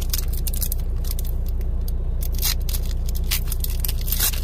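Foil booster-pack wrapper crinkling as it is opened by hand, with a few sharp crackles in the second half. Under it runs a steady low hum, the loudest thing throughout, from the idling truck engine.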